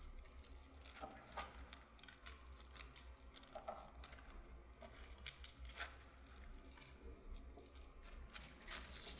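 Faint, irregular crisp rustles and crackles of raw napa cabbage leaves being handled and turned over in a stainless steel bowl.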